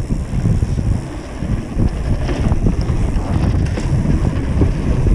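Wind buffeting an action camera's microphone while a mountain bike rolls fast over a wooden boardwalk, with steady tyre rumble on the planks and a few short clicks and rattles from the bike.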